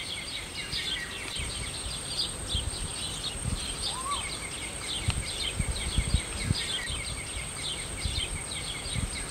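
Outdoor ambience of insects and birds: rapid high chirping throughout with a steady high insect whine, a single short rising-then-falling bird call about four seconds in, and low irregular rumbles of wind on the microphone.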